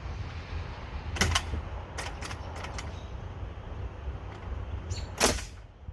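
Pneumatic nail gun, with the air pressure turned up to 100, firing once a little over five seconds in: a sharp crack with a short burst of air, the loudest sound here. Lighter knocks and clicks come before it, over a steady low rumble.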